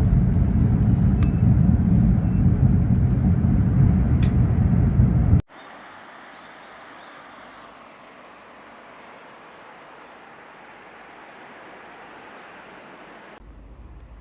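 Wind buffeting the microphone, with a low rumble and scattered sharp crackles. After about five and a half seconds it cuts off abruptly to a much quieter, steady hiss.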